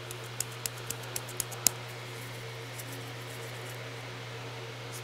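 Light clicks and taps of small plastic glitter jars being handled, about six in the first two seconds with the last the sharpest, over the steady low hum of a fan.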